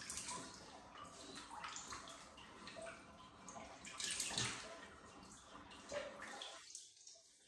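Faint water moving and dripping in a bathtub, with a louder stir about four seconds in.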